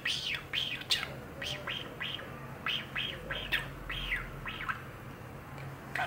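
Male budgerigar chattering in its small, scratchy talking voice: a quick run of short high syllables as he mimics Japanese phrases such as 'piyo piyo piyo Chappie'.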